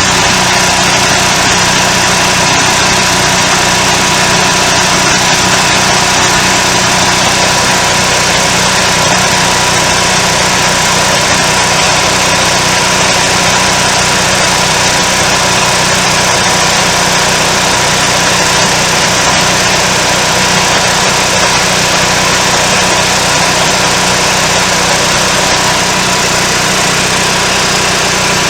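RV's propane-fuelled generator engine running steadily at a constant speed, now starting and running on propane after the supply was turned back on.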